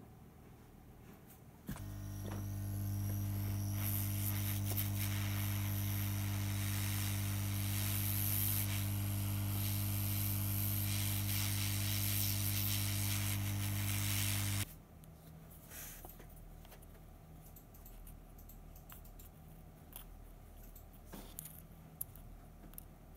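Hot air gun blowing onto blue heat-shrink sleeves over soldered wire joints: a steady low hum with a hiss of rushing air, switched on about two seconds in and cut off abruptly about fifteen seconds in. Afterwards come only faint handling noises and small clicks as the wires are fitted into the webcam housing.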